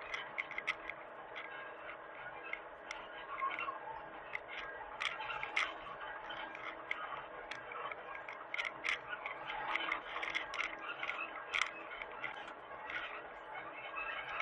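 Hitachi mini excavator at work: a steady hum with irregular sharp clicks and knocks over it, several a second at times.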